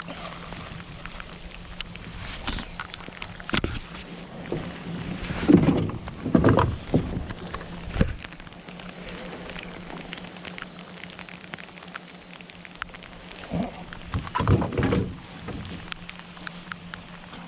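Rain falling steadily, with several dull thumps and knocks scattered through, bunched about six seconds in and again about fourteen seconds in.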